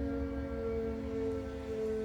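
Escape siren of a secure psychiatric hospital sounding during its routine test: a held, multi-tone wail whose pitch sags slowly downward.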